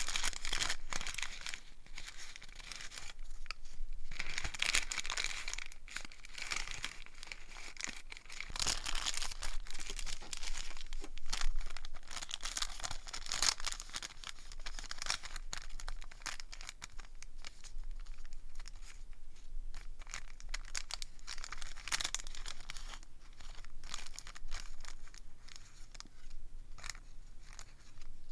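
Thin clear bags of small paper cut-outs crinkling and rustling in the hands, with the paper pieces rustling as they are pulled out and sorted. The crackling comes in irregular flurries.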